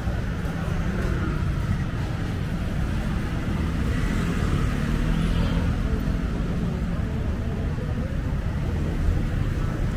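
Steady road traffic on a busy city street: vehicles running and passing, with a constant low rumble.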